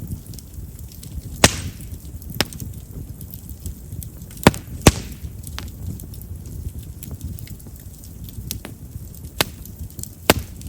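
Chestnut firewood burning in an open fire: a low steady rumble of flames with scattered crackling and about six sharp pops, two close together a little before the middle. Chestnut's large wood vessels make it a wood known for popping as it burns.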